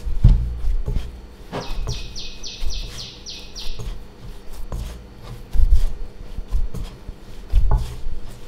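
Hands kneading soft potato dough in a glass bowl: squishing and dull thumps as the dough is pressed down against the bowl, loudest at the start, about five and a half seconds in and near the end. From about two to four seconds in, a short run of about seven high chirps sounds over it.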